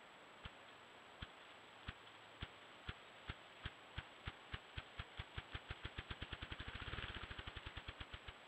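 Male ruffed grouse drumming: low, muffled wing-beat thumps, slow at first, speeding up steadily until they run together into a rapid whir about seven seconds in, then stopping just before the end. Drumming is the male's territorial and courtship display.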